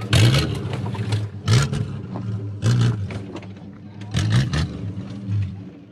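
Jeep engine revving hard under load in repeated throttle bursts, one every second or so, as it climbs a muddy, rutted slope.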